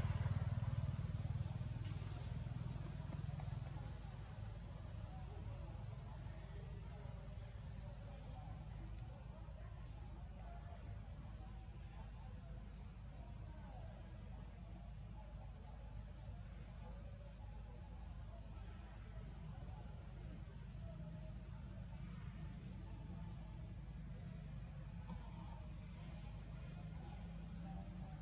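Steady high-pitched drone of insects, held unbroken throughout, over a low rumble that fades away over the first few seconds.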